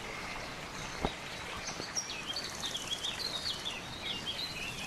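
A small bird chirping, a quick run of short sliding notes that starts about two seconds in, over outdoor background noise, with a faint insect buzz higher up. A single brief knock about a second in.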